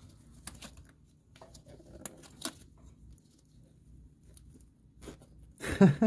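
Scattered light plastic clicks and rustling from gloved fingers working a fuel injector's plastic electrical connector on an LS V8's fuel rail, fumbling to press the connector's release forks.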